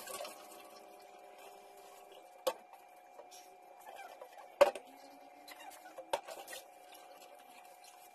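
Dishes and cutlery clinking and knocking in a kitchen sink during hand dish-washing: a few sharp clinks, the loudest about halfway through, over a faint steady hum.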